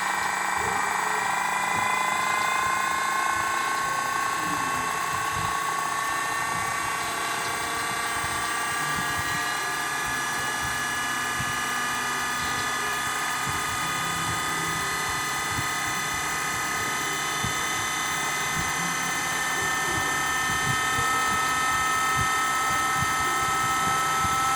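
Small electric motor of a micro RC helicopter running with a steady high-pitched whine, its pitch rising slowly as it speeds up.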